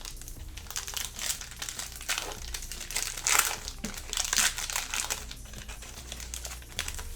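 Plastic foil trading-card pack wrapper crinkling as it is torn open and handled, in irregular crackles that are loudest around the middle.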